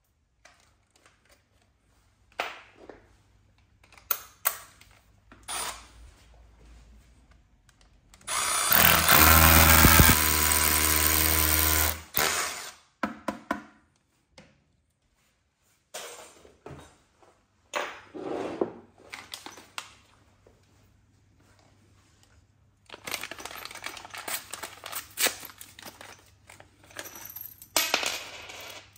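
Cordless drill with a masonry bit running steadily for about four seconds as it bores a mounting hole into a wall. Scattered knocks and handling follow, and near the end metal screws and plastic wall plugs clink together in the hand.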